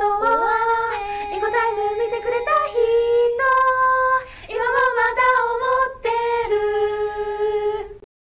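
Female idol-pop group singing a song over backing music, with held, stepping notes, which cuts off abruptly near the end.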